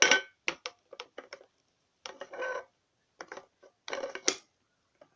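Plastic items being handled and set down: a string of short, irregular clicks and clatters, with a louder cluster about four seconds in.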